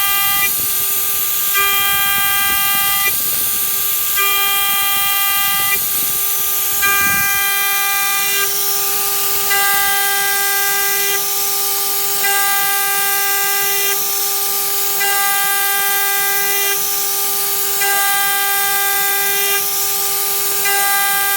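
Spindle of a DIY CNC machine running with a steady high whine while the end mill cuts aluminum; a shrill cutting squeal comes and goes about every two and a half to three seconds, eight times, as the tool makes pass after pass. A low rumble underneath stops about seven seconds in.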